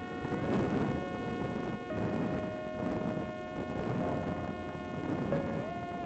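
Parrot Disco flying wing in flight: its electric motor and pusher propeller whine as several steady tones that shift pitch twice, over wind noise rushing past the on-board camera's microphone.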